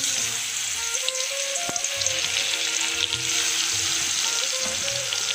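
Bitter gourd slices, salted and coated in turmeric, dropped into hot oil in a kadai and frying with a steady sizzle that starts suddenly as the first slices go in.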